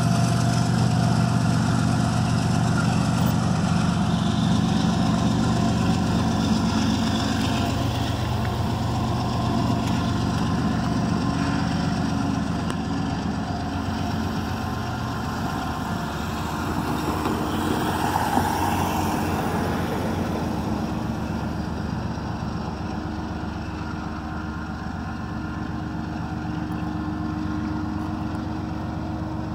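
A diesel freight locomotive's engine drone, steady and slowly fading as the locomotive moves away down the track.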